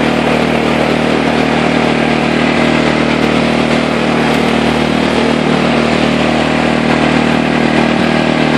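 Yard-Man lawn tractor's 16-horsepower Kohler engine running steadily as the tractor is driven across the lawn.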